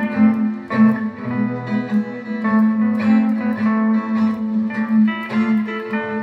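Steel guitar playing a melody of picked notes over a steady low bass note, in an instrumental passage with no singing.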